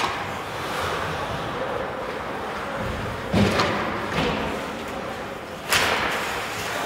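Ice hockey play in a rink: a couple of heavy thumps against the boards about halfway through and a sharp crack near the end, over the steady noise of the arena.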